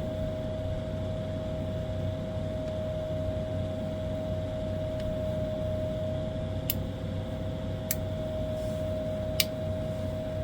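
A steady mechanical hum with one constant tone, and three sharp clicks in the second half, the last the loudest.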